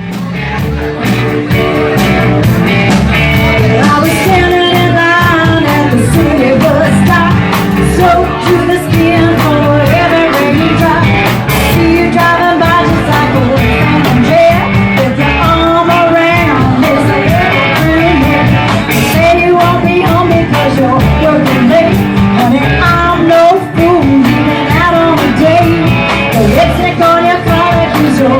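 Live rock and roll band playing loudly, a singer's voice carried over guitar, bass and drums with a steady beat.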